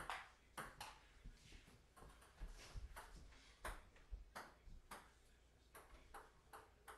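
A table tennis rally: a ping-pong ball clicking against the paddles and the table, about a dozen sharp hits at one to two a second, irregularly spaced.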